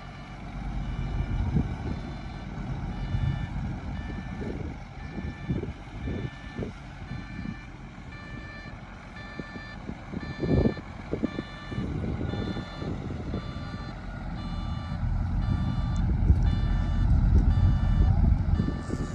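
Reversing alarm on a heavy earthmoving machine beeping steadily, about two beeps a second, over the low rumble of diesel engines that grows louder near the end.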